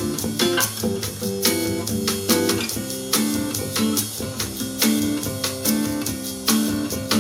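Guitar-led music with percussion played through a JVC RV-NB70 Kaboom boombox's speakers.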